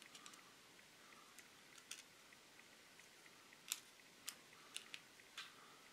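Faint clicks and ticks of a small screwdriver tip working against a plastic model-car part, prying a clear plastic taillight out of its bumper. About five sharp clicks, most in the second half, the loudest a little under four seconds in.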